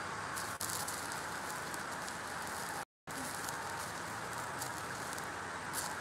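Electric arc welding on a steel tube: a steady crackling sizzle from the arc, with a brief break near the middle.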